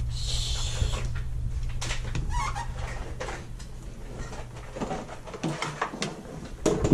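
Green plastic spoon scooping thick pumpkin-applesauce purée and knocking against a glass bowl and a plastic funnel on a mason jar, a series of scattered clicks and taps over a steady low hum.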